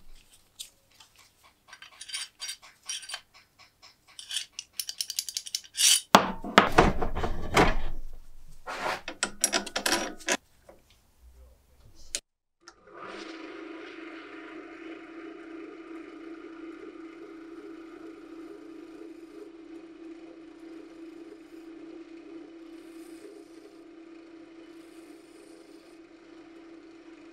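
Metal lock parts and a steel rod handled on a wooden workbench, with loud scraping noise about six to ten seconds in. Then a lathe starts about 13 seconds in and runs steadily, spinning a steel rod held in its chuck, a key blank being turned.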